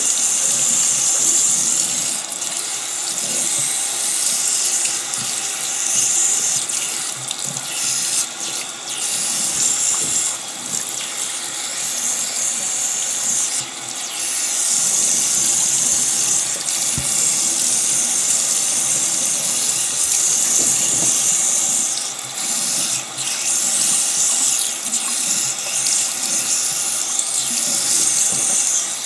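Water running steadily while hair is being washed, the flow broken briefly a few times.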